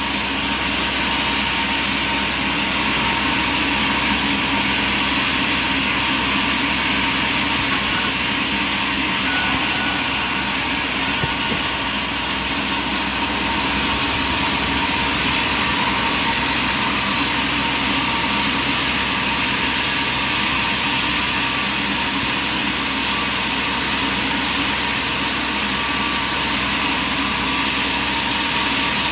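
Sawmill running steadily, a constant engine and machine noise with no change in speed.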